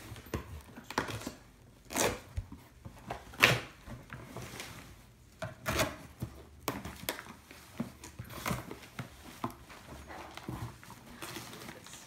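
A cardboard gift box being cut open and handled: a blade scraping through packing tape and cardboard, with irregular clicks, scrapes and rustles of the flaps and packing.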